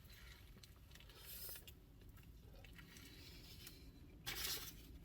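Faint, quiet handling of a sandwich: two brief, soft rustling sounds, one about a second in and one after about four seconds, over low room tone.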